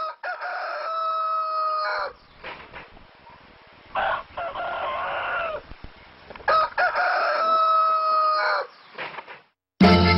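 A rooster crowing three times, each crow a long held call that falls away at the end.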